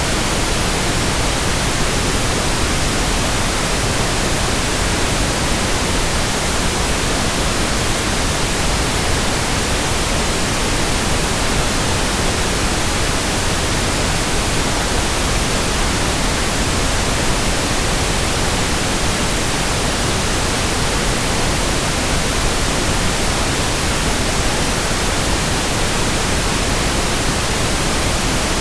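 Synthetic pink noise: a steady, even hiss spread across the whole range, with no changes in level.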